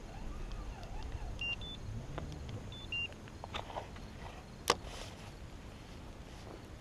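Handling of a spinning rod and reel on a kayak: scattered light clicks and one sharp click from the reel a little past halfway, over a faint low rumble. Two short high beeps sound about a second and a half in and again about three seconds in.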